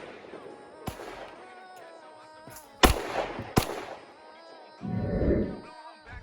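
Gunshots: one sharp crack about a second in, then two loud cracks less than a second apart near the middle, each with a short ringing tail. Background music plays underneath, and a low rumble comes about five seconds in.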